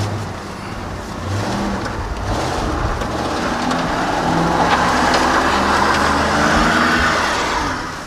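Tow truck's engine revving under load while the truck, stuck in snow and ice, strains to move, with a hissing noise building for several seconds and falling away near the end, typical of wheels spinning on the slick surface.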